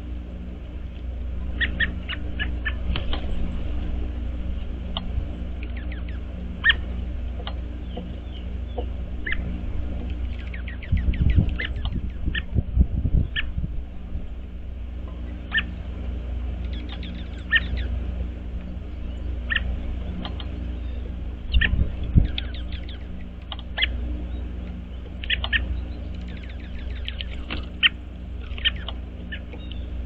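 Songbirds chirping: short high calls scattered throughout, some in quick runs, over a steady low hum. Low thumps come in a cluster about eleven to thirteen seconds in and again about twenty-two seconds in.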